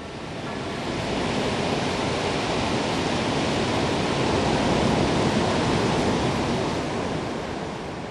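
Ocean surf: a steady rush of breaking waves that swells over the first few seconds and eases off near the end.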